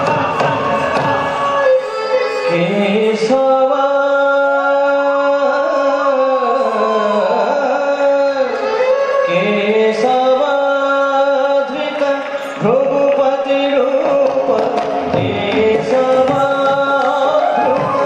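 Odissi dance music: a sung melodic line over sustained accompaniment, with hand-drum strokes. The drumming drops out about two seconds in for a long held, slowly gliding passage, then comes back in the second half.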